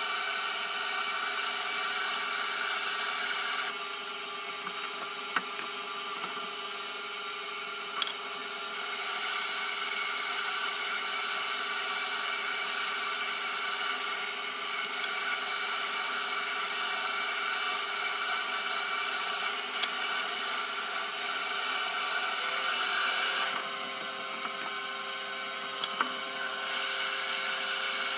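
Metal lathe running while machining a steel blank into spindle nuts: a steady machine hum with a constant tone. The cutting sound shifts about 4 seconds in and again near 23 seconds, with a few sharp clicks in between.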